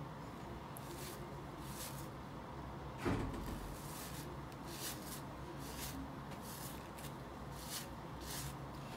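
Bristle hairbrush strokes through damp, conditioned hair: short swishes every half second to a second, with one dull thump about three seconds in.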